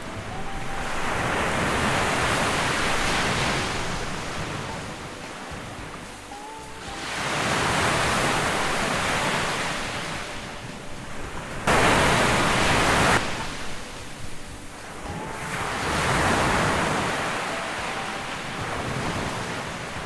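Surf on a sandy beach, waves swelling and falling back about every five seconds. About twelve seconds in, a louder rush of noise starts and stops abruptly.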